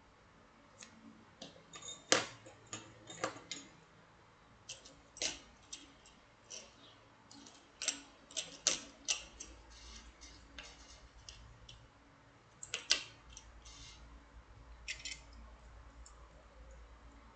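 Small metal wire puzzles clicking and clinking as they are handled, in irregular light taps. There is a louder knock about two seconds in and another near the thirteenth second.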